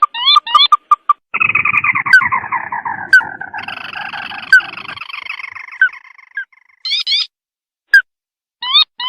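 Crake calling, the 'tikusan mata merah' of rice fields, from a bird-lure recording. A few quick rising notes lead into a long trilled chatter that falls slowly in pitch over about four seconds. Short bursts of quick rising notes and single sharp notes follow near the end.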